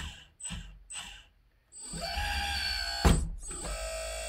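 RC hydraulic excavator's on-demand electric hydraulic pump whining in three short bursts, then spinning up with a rising whine about two seconds in and running steadily. A sharp knock comes about three seconds in.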